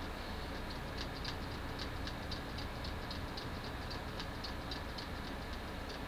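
A desktop computer running with a steady hum, with light clicking from its old SATA 2.0 hard drive about four times a second: the drive has failed.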